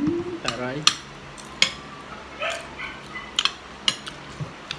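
Spoons and forks clinking against plates, about five sharp clinks spread through the stretch, with a short rising whine in the first second.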